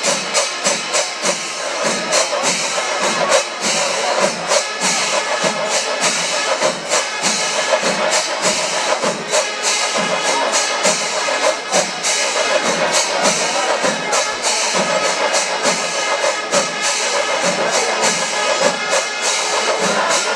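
Kerala temple festival percussion ensemble: many drums and cymbals beating a fast, steady rhythm, with a wind instrument's held notes over it.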